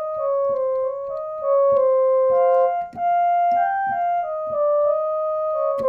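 Electronic keyboard playing a simple single-note melody, doubled at the octave, over a steady beat of about two strokes a second.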